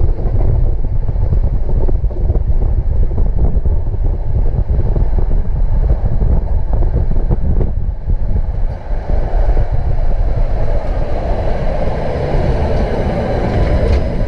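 Budapest tram running along the track, heard from inside the car: a steady low rumble with frequent short knocks from the wheels on the rails. About nine seconds in, a higher whine with faint steady tones joins the running noise.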